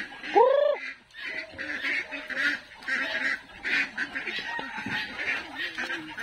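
Muscovy ducks calling in a flock: a steady chatter of short, rapid calls, with one loud rising call about half a second in.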